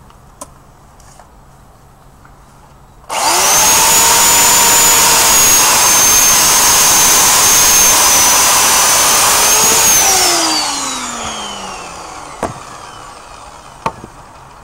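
Corded electric chainsaw switched on about three seconds in, its motor running with a steady high whine while it cuts through a branch on a sawbuck. It is released and the whine falls in pitch as the motor winds down, followed by two short knocks.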